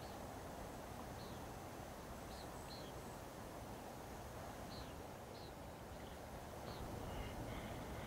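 Short, high bird chirps every second or so over a steady low outdoor wash from calm water and air.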